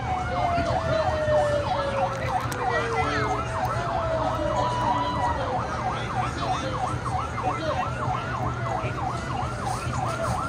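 Emergency vehicle siren in its fast yelp, rising and falling about three times a second, while a slower siren tone glides down during the first few seconds. A steady low hum runs beneath.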